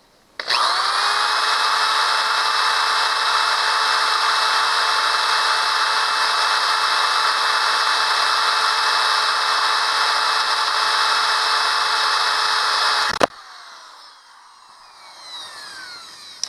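Power drill boring a hole through a chopping board: the motor spins up about half a second in, runs at a steady high whine under load for about twelve seconds, then cuts off suddenly. Quieter scraping and rustling follow.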